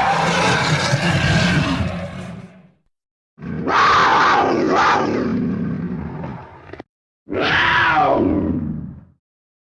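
Torvosaurus roar sound effects: three loud, rough, growling dinosaur roars, each a few seconds long and separated by brief silence, the last one falling in pitch.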